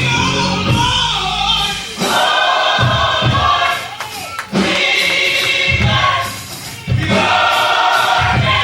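Gospel choir singing with musical accompaniment, the singing breaking off briefly twice between phrases.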